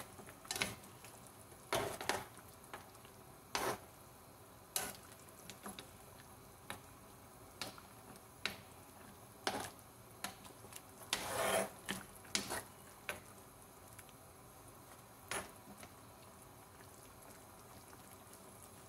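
Spoon stirring a pan of chicken in broth, knocking and scraping against the pan in irregular clinks every second or two, with a longer scrape about eleven seconds in.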